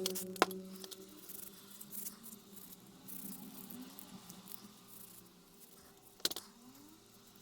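Quiet handling of a freshly cold-blued steel wrench being wiped clean with oil: soft rubbing, with two sharp clicks, one about half a second in and one near the end.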